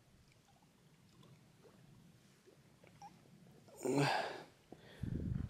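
Near silence, then about four seconds in a person's single short, noisy breath, followed near the end by a low rumble.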